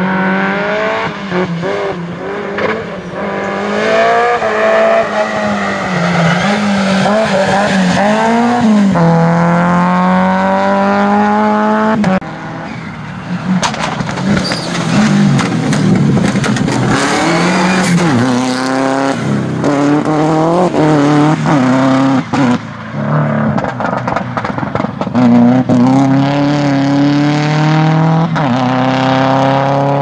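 Rally cars on a gravel stage, engines revving hard, the note climbing and dropping again and again as they shift up through the gears. About twelve seconds in, the sound breaks and a second car is heard, a Subaru Impreza rally car, revving the same way.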